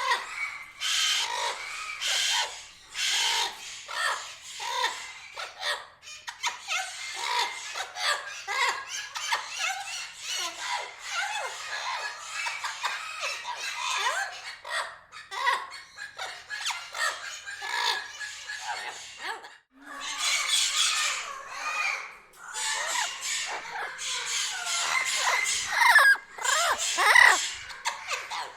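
Parrots calling: a busy run of squawks, chatter and squeals, with quick rising and falling whistles near the end.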